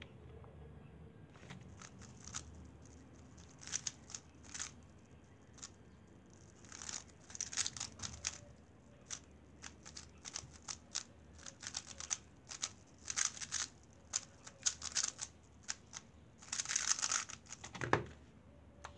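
Weilong GTS2 3x3 speedcube being turned rapidly during a timed solve: quick plastic clicking and clacking turns in irregular bursts with short pauses, ending in a knock near the end.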